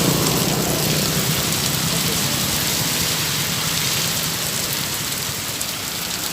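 Heavy rain pouring down in a steady, dense hiss. A low hum is plainest in the first second or two, then fades under it.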